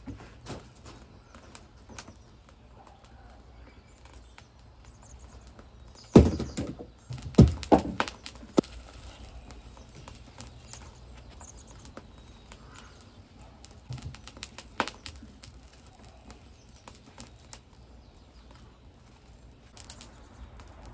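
Small wood fire crackling in a metal fire bowl, with sharp pops scattered throughout. A cluster of loud knocks and thuds comes about six to eight seconds in.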